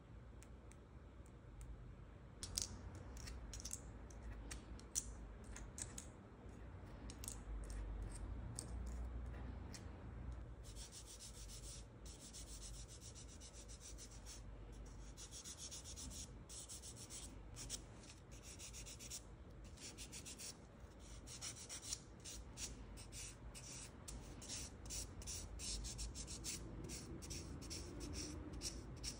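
A nail file rubbed back and forth across a fingernail in short, scratchy strokes. The strokes are scattered at first, then come quicker and more steadily from about a third of the way in.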